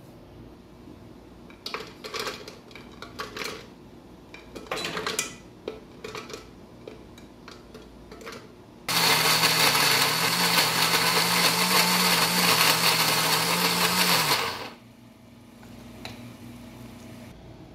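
Ikon electric blender grinding soaked, peeled almonds with water: the motor starts about nine seconds in, runs steadily for about six seconds, then cuts off and winds down. Before it starts, a few short knocks and rattles as the almonds go into the plastic jar.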